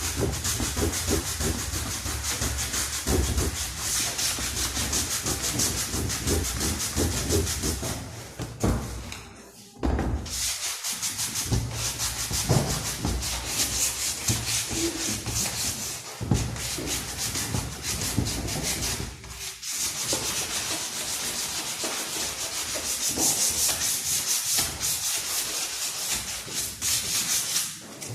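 Continuous rasping, abrasive scraping, like sanding, with a fast fine grain to it; it stops briefly about eight seconds in and again at about twenty seconds, then resumes.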